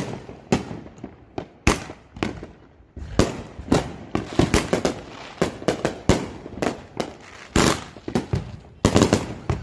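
Consumer fireworks going off: a string of sharp bangs, a few spaced out over the first three seconds, then coming fast and irregular, several a second.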